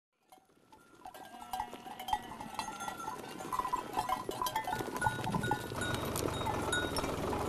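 Many livestock neck bells of a grazing herd clanking irregularly, fading in from silence. A low rumble joins about five seconds in.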